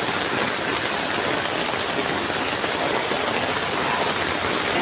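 Steady rain falling, an even hiss with no distinct drops or knocks standing out.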